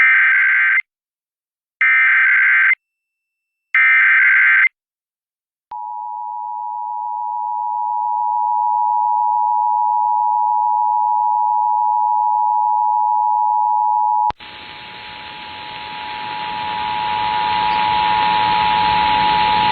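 Emergency Alert System broadcast tones: three short bursts of digital data header about a second apart, then the steady two-tone EAS attention signal. About fourteen seconds in, the attention tone continues over a hiss that grows louder.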